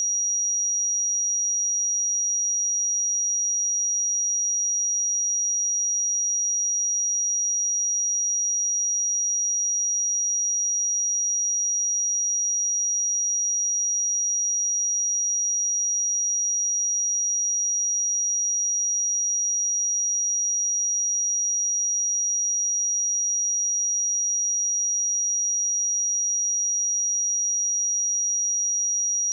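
A single steady 5747 Hz sine-wave test tone, a constant high-pitched pure tone at even level.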